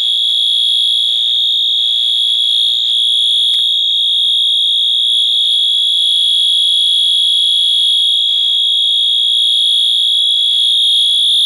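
Wheelock MT24 MCW multitone fire alarm horn sounding a steady, unbroken high-pitched horn tone, set off by a manual pull station.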